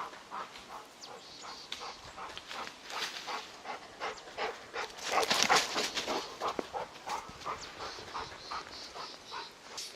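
Labrador retriever panting in quick, even breaths, with a louder rush of noise about five seconds in.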